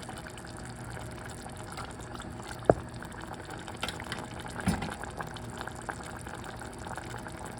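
Liquid cooking sounds from a pot of tomato sauce as the half-boiled pasta is put in. There is a sharp knock about a third of the way in, a duller thump past the middle, and a few light clicks.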